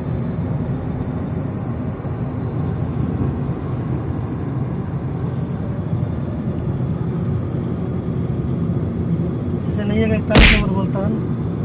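Steady low rumble of a moving car heard from inside the cabin, engine and tyre noise. About ten seconds in comes one sharp, loud thump.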